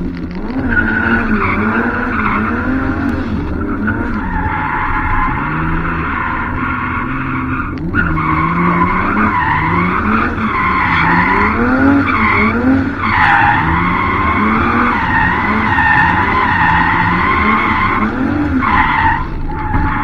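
BMW E30 drift car's turbocharged M20 straight-six revving up and down over and over, with the tires squealing loudly through the slides. The rapid rise and fall is throttle modulation, the driver working against uneven grip on a patchy, wet surface.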